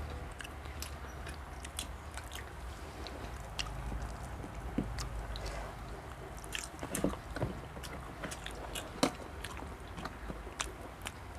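People chewing and biting into food at a meal, with scattered small sharp clicks and taps throughout.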